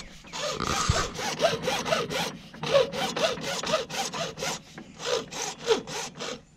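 Hand hacksaw cutting through white PVC pipe: rhythmic scraping back-and-forth strokes, about four to five a second, with a couple of brief pauses, stopping just before the end.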